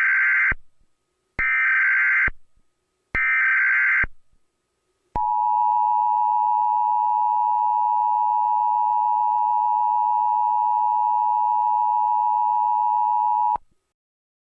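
Emergency Alert System alert opening: three short bursts of SAME digital header tones, then the steady two-tone EAS attention signal (853 and 960 Hz), held for about eight seconds before it cuts off.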